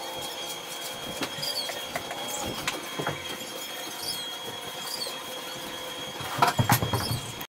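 Scattered clicks and light knocks from hand work on a galvanized steel tubular wall frame, with a cluster of louder knocks near the end, over a faint steady high whine.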